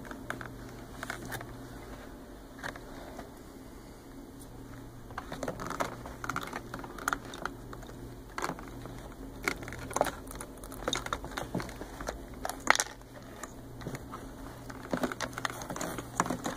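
Hands fitting braided vinyl hoses and plastic hose fittings onto a replacement carpet-cleaner pump: scattered clicks, knocks and rustles, sparse at first and busier after about five seconds, over a low steady hum.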